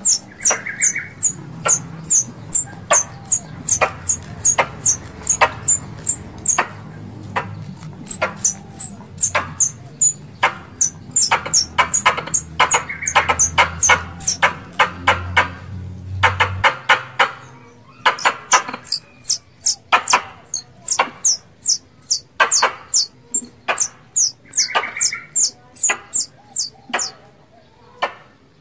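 Caged tree squirrels chattering: a rapid series of sharp, high, quickly falling chirps, about two to three a second, with brief pauses. These are the calls of squirrels in heat, the kind used as a lure.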